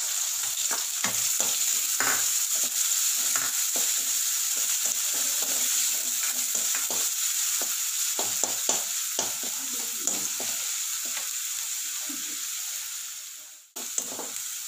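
Chopped onion and garlic sizzling in hot oil in a kadai, with a spatula clicking and scraping against the pan as they are stirred. The sizzle cuts out abruptly near the end and then resumes.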